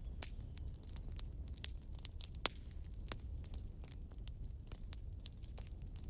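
Wood fire burning in a fireplace: irregular sharp crackles and pops from the burning logs over a low steady rumble, with one louder pop about two and a half seconds in.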